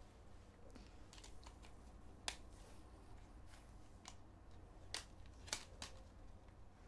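Faint, scattered clicks and taps of plastic Blu-ray cases being handled and opened, a few sharper clicks about two seconds in and again around five to six seconds in.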